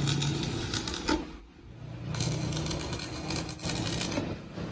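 Stick (arc) welding on a steel front axle housing: the arc crackles and sizzles steadily, breaks off about a second in, and is struck again just under a second later, running until shortly before the end.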